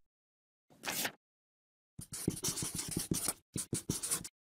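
Writing on paper: a short scrape about a second in, then a run of quick scratchy pen strokes and a few short strokes near the end.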